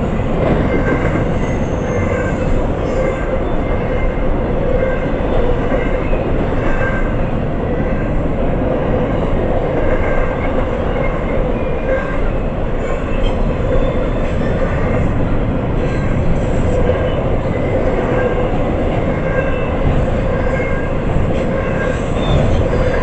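A freight train of empty tank cars rolls steadily past a grade crossing, a continuous rumble of wheels on rail. A faint crossing bell dings over it about once a second.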